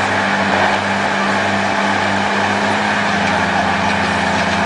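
Heavy truck's diesel engine running steadily at a constant speed, a deep even hum.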